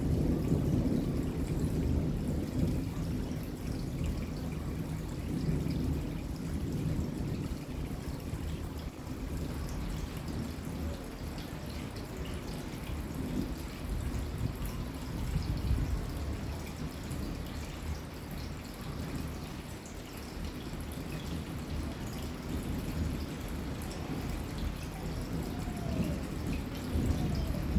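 Steady rain with water dripping and trickling. Low rumbles of thunder swell at the start and again just before the end.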